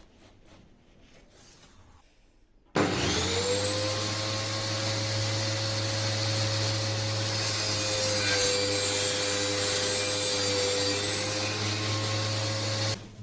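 Handmade table saw's motor switched on about three seconds in, spinning up quickly to a steady whine, then running at constant speed for about ten seconds before it is switched off near the end. Faint rubbing and handling sounds come before it starts.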